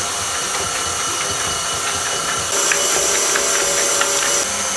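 KitchenAid Classic stand mixer running steadily with its wire whisk turning through butter, sugar and eggs, blending them into cake batter rather than whipping air in. The sound gets brighter with a few light ticks for a couple of seconds in the middle.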